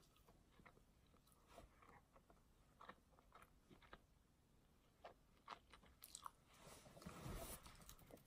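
Faint close-up chewing of a mouthful of burger: soft, scattered wet mouth clicks, with a brief louder rustle about seven seconds in.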